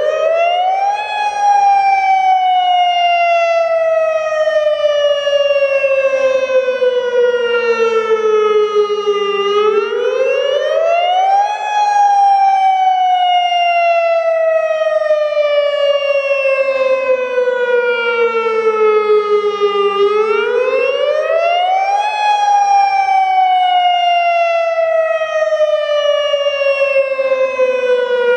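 Federal Signal Modulator 6048 outdoor warning siren sounding its wavering Attack signal. The pitch climbs quickly for about a second and a half, then slides slowly down for about eight seconds, three times over.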